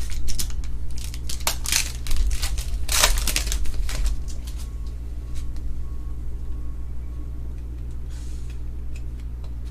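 Trading-card packs being opened and the cards handled: crinkling wrapper and sharp card clicks, busiest in the first four seconds and sparser after, over a steady low hum.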